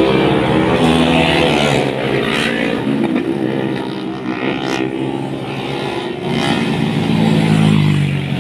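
Several motorcycles riding past, their engines revving and rising and falling in pitch as they go by, loudest near the start and again near the end.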